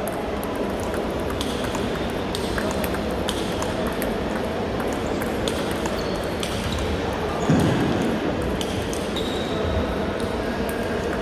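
Table tennis balls clicking off paddles and bouncing on tables in a rally, with sharp irregular ticks in a reverberant hall. About seven and a half seconds in there is a brief, louder dull thump.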